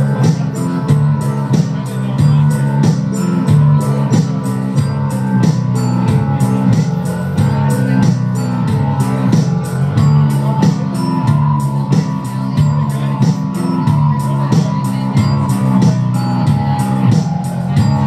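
A live band playing a rock song: keyboard synthesizer and electric bass guitar over a steady drum beat.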